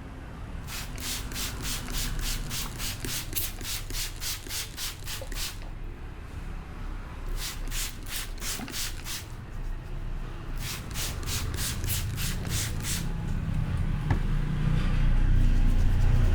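Brisk rubbing strokes from a masseur's hands in a head massage, about five strokes a second in three bouts. A low rumble runs underneath and grows louder near the end.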